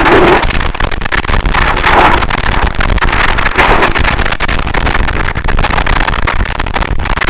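Harsh noise wall: a loud, dense roar of distorted static with constant fine crackle, swelling and thinning unevenly in the middle range.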